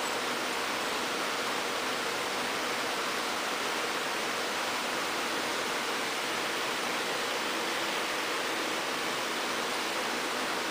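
Steady, even hiss of background noise; no separate lapping or chewing sounds stand out above it.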